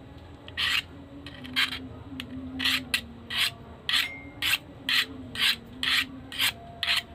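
A small pocketknife's steel blade stroked repeatedly along the very coarse diamond-grit section of a tapered diamond sharpening rod, about two short scraping strokes a second. The coarse grit leaves the edge ragged.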